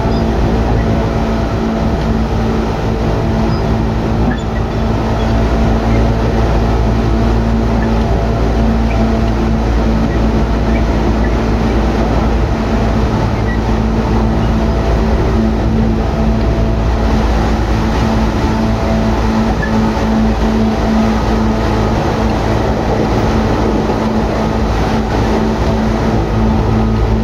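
Tokyu 8500 series electric train running at a steady speed: loud traction motor and gear hum from its Hitachi and Toyo motors, a steady drone over the rumble of wheels on rail.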